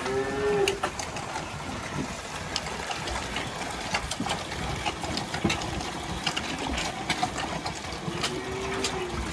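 Calf-milk cart's pump running as milk pours from its hose into a plastic bucket, with scattered clicks and knocks. A calf calls briefly at the start and again near the end.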